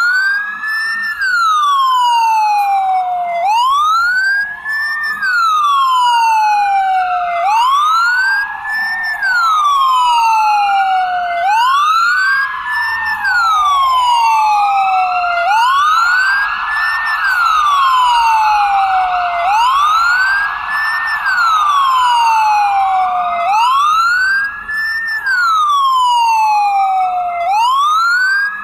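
Ambulance siren in wail mode: the pitch sweeps up quickly, then falls more slowly, repeating about every four seconds. A fainter second wail overlaps it out of step.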